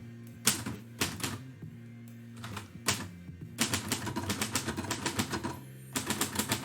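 Typewriter keys striking. A few separate keystrokes come first, then a quick run of typing lasting about two seconds, and a short burst near the end.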